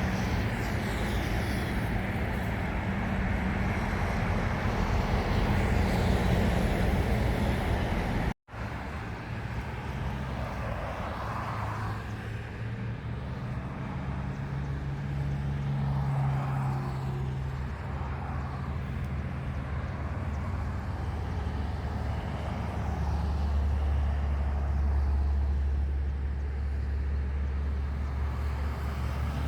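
Steady rumble of engines and traffic noise, with a brief total dropout of sound about eight seconds in; a deeper low engine rumble grows louder near the end.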